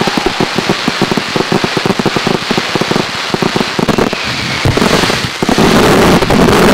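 Daytime fireworks crackling: a dense, rapid patter of many small pops, like heavy rain. About five seconds in it thickens into a louder, steadier rush.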